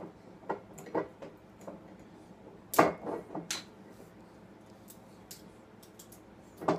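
Apple being bitten and chewed: a few scattered crisp crunches with pauses between, the loudest nearly three seconds in.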